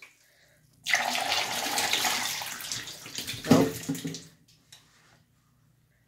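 Water rushing and swirling through a miniature toy toilet in a flush. It starts suddenly about a second in and tapers off over the next three seconds.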